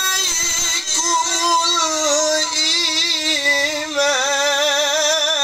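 A man reciting the Qur'an in a slow melodic chant, drawing out long held, wavering notes on the words "ilaykumul-iman".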